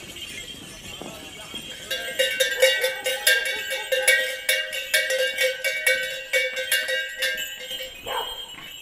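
Metal bells jangling and ringing in quick, uneven strokes, loud from about two seconds in and thinning out near the end.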